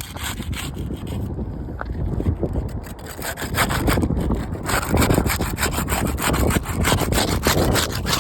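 Putty knife being forced under laminated asphalt roof shingles, scraping and rasping in quick repeated strokes as it breaks the shingles' adhesive seal strips.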